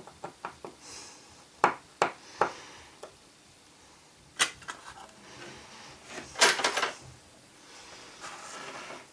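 Small tools clicking and tapping against the phone's metal bracket and screws: a few light ticks about a second and a half in, another near the middle, and a quick rattle of clicks a little later, with faint scraping between.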